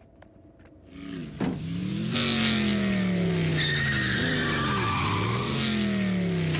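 Motorcycle engine running at high speed, fading up in the first second or so, its pitch sliding down and back up as it passes, with tyres screeching loudly from about two seconds in.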